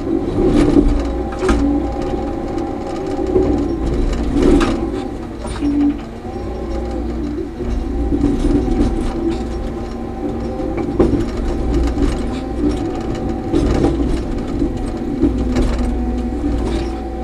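Cat D6K crawler dozer heard from inside its cab: the diesel engine runs steadily under load with a whine, and the steel tracks clatter and clank over frozen ground, with sharp clanks now and then. The whine dips and wavers briefly about six seconds in.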